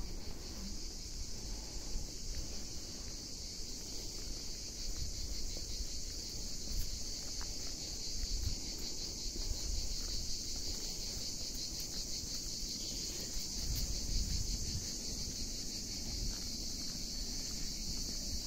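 Steady, high-pitched insect chorus: a continuous shrill buzz that does not let up.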